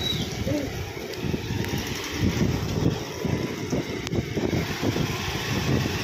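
Low, uneven rumble of a vehicle driving slowly along a rough, wet village road.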